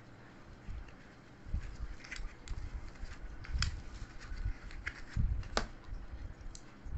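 Mechanical keyboard keys being pressed now and then: scattered, irregular clicks with low thuds, no steady typing rhythm.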